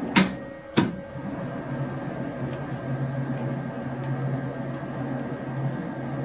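Metal lathe running slowly under power with the thread-cutting feed engaged, its tool taking a very light skim off one flank of a steel worm shaft. The machine gives a steady hum. Two sharp knocks come in the first second.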